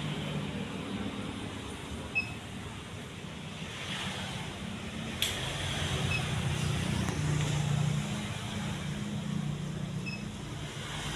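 Majestic deluxe ceiling fan running, with a steady low motor hum under a wash of air noise. There is one sharp click about halfway through.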